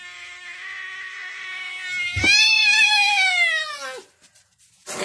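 Domestic cat yowling at another cat through a glass door. First comes a long, steady, drawn-out cry, then about two seconds in a much louder yowl that rises and slowly sinks over nearly two seconds before it stops.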